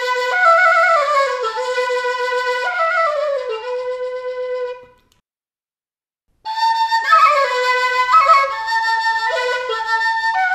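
A flute playing a slow melody of held notes. It fades out about halfway through, stops for about a second and a half, then starts up again with a new phrase.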